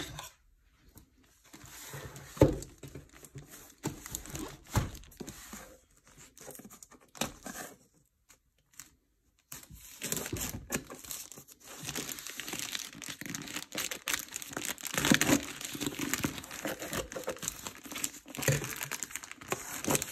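Grey plastic poly mailer bag crinkling and rustling as it is handled and opened, with two sharp knocks in the first five seconds and dense continuous crinkling after a short pause midway.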